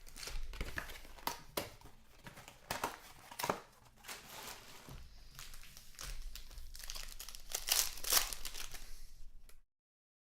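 Plastic wrapping of trading card packs crinkling and tearing as the sealed packs are opened by hand, in irregular crackly handfuls. The sound cuts off abruptly near the end.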